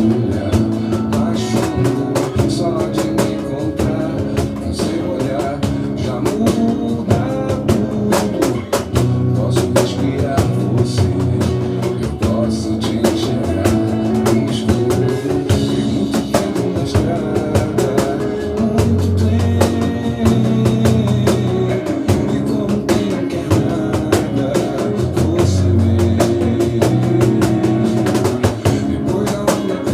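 Batucada: Brazilian samba percussion music, with drums striking a dense, steady rhythm over sustained bass notes.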